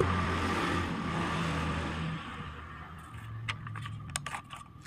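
A motor vehicle engine runs steadily and fades away over the first two seconds or so. Then a sheet of paper rustles and crackles as it is picked up and handled.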